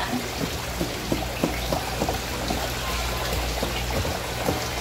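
Kitchen knife chopping sea anemone on a plastic cutting board: quick, short chops about three a second. Water trickles under it, with a low steady hum.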